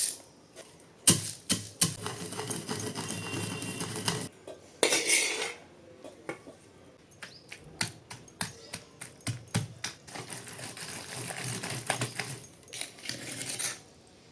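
Kitchen utensils clicking, knocking and scraping on dishes, with runs of steady scraping between clusters of sharp clicks.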